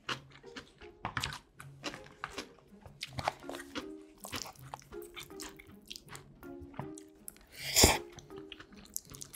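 Close-miked eating sounds: chewing with many small crisp clicks and wet mouth noises, over soft background music. One louder mouth noise stands out near the end.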